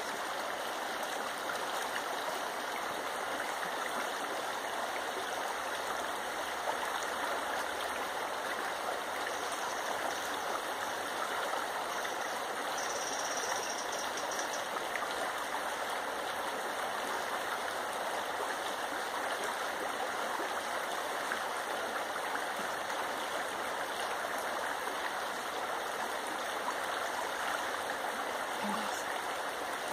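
Shallow river water flowing steadily past a gravel bar, a continuous even rushing.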